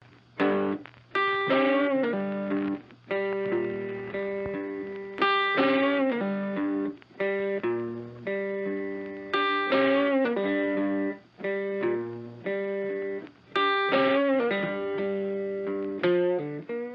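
Intro music: a guitar playing a riff of plucked notes that ring and fade, some bent in pitch.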